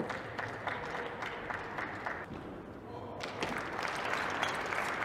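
Audience applause breaking out about three seconds in and carrying on, after a stretch of scattered light clicks and taps.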